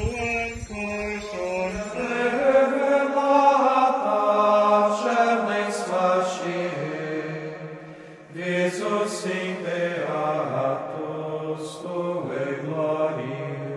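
Voices singing a slow hymn in long held notes, briefly fading about eight seconds in before swelling again.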